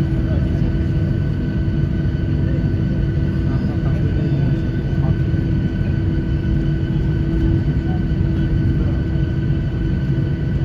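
Airliner cabin noise during taxi: a steady low rumble with a constant hum and a higher steady whine from the engines and cabin air.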